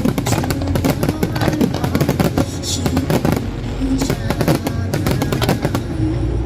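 Fireworks going off in a rapid string of sharp cracks and bangs, over loud music with steady tones.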